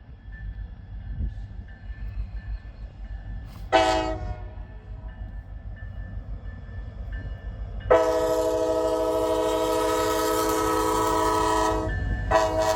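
Multi-chime locomotive air horn on Norfolk Southern's GoRail unit 6963 sounding a salute over a low rumble. A faint chord is heard at first, then one short loud blast about four seconds in, a long blast of about four seconds from about eight seconds, and another short blast near the end.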